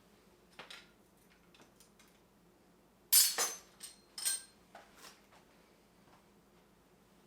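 Metal hand tools clinking and clattering as they are handled and set down, with two louder, briefly ringing clanks about three and four seconds in among lighter taps.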